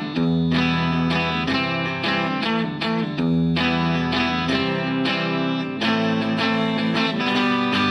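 Background music led by a plucked guitar playing a run of notes over a sustained bass.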